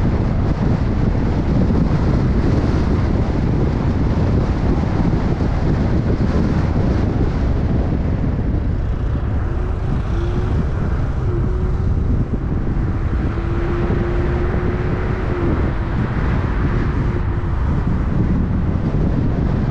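Wind buffeting the microphone of a camera on a moving car, over a steady low rumble of tyres and engine. About halfway through, a faint steady hum comes in and stops a couple of seconds before the end.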